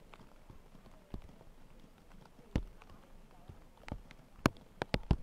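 A scattered series of sharp knocks and clicks, irregular in timing and loudness, with a cluster of the loudest ones near the end; faint voices murmur in the background.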